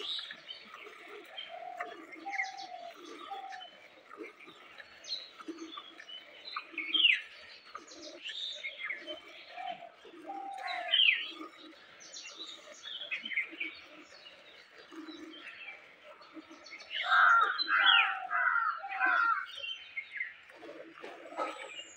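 Birds chirping and calling on and off, with short sweeping notes. About seventeen seconds in, a loud run of rapid repeated calls lasts a couple of seconds.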